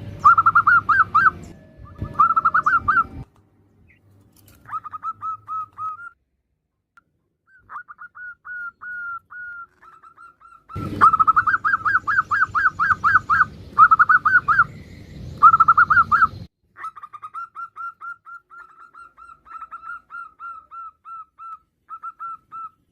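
Female zebra doves (perkutut) giving rapid staccato cooing trills, runs of quick notes at about eight a second. Loud runs near the start and again in the middle, with fainter runs between and a couple of brief pauses.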